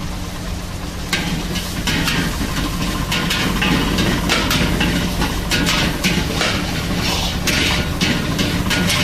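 Steel ladle scraping and clanking against an iron wok as fried rice is stirred and tossed, repeated strokes about one or two a second starting about a second in, over a steady low hum.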